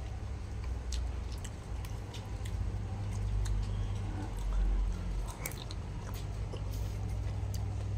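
Close-up chewing and eating of chicken noodles, with light clicks and clinks of a fork and spoon scattered through it, over a steady low hum.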